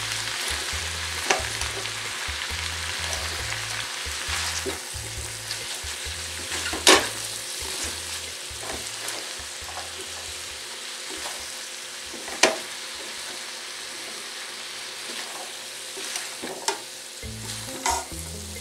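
Vegetables (potatoes, poblano strips, onion and corn) sizzling in a stainless steel skillet while being stirred with a slotted spatula. A steady frying hiss runs under a few sharp knocks of the spatula against the pan, the two loudest about seven and twelve seconds in.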